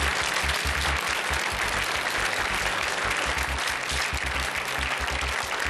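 Studio audience applauding a correct answer on a TV quiz show: steady, dense clapping.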